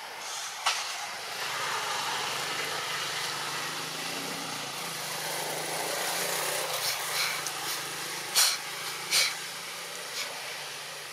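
A motor vehicle's engine running past, its hum and road noise swelling for several seconds and then easing off. Two short sharp sounds stand out about two-thirds of the way through, louder than the engine.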